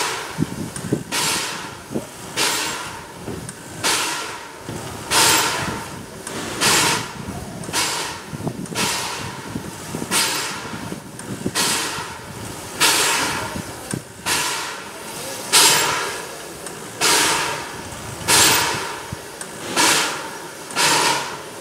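Corpet-Louvet steam tank locomotive standing at rest and giving off rhythmic puffs of hissing steam, one about every second and a half, each starting sharply and fading away.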